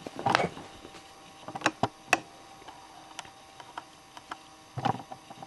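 Scattered light clicks and ticks, about a dozen spread unevenly over a few seconds, with a soft rustle about a quarter second in and another near the end, over a faint steady hum.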